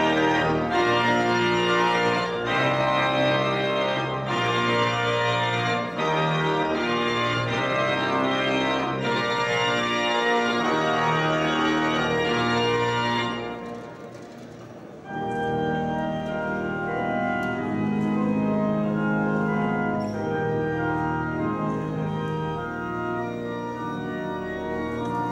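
Pipe organ playing sustained full chords; about fourteen seconds in it breaks off briefly and resumes more softly with long held chords.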